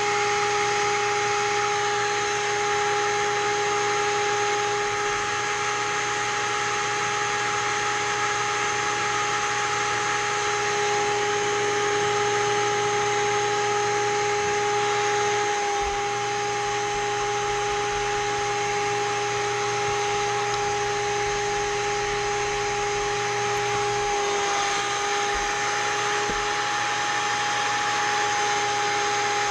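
Seamer Down Now carpet seam tool's electric motor running steadily with a constant whine and a low hum.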